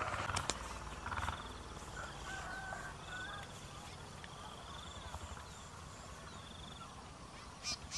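Rural outdoor ambience: birds chirping and a fast high trilling call over a steady low rumble. A few knocks and scuffs come in the first second or so.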